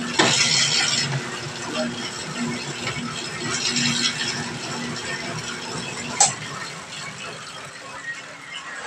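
Electric dough roller running with a steady motor hum and a mechanical gear rattle as bread dough is passed through its rollers, with two short bursts of hiss. A sharp click about six seconds in, after which the hum stops.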